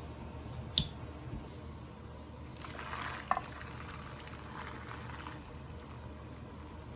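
Liquid running for about three seconds, with a short clink partway through, after a single sharp click about a second in.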